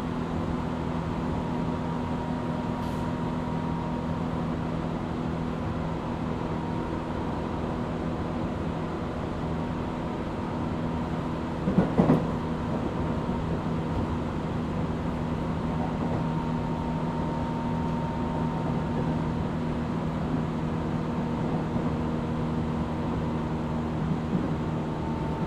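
Tobu 8000 series electric train heard from inside motor car MoHa 8270 while running: a steady motor and gear hum over wheel-on-rail noise at a fairly even speed, with a brief loud clatter about twelve seconds in.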